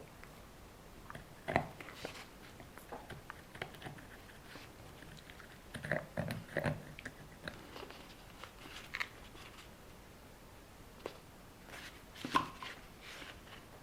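Scattered small clicks, taps and knocks of hands handling small objects, likely the glue tube and wheel, with a louder knock about a second and a half in, a cluster of them about six seconds in, and another near the end.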